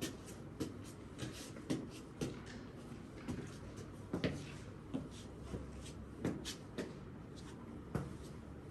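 Irregular clicks and knocks, about one or two a second, over a low steady background.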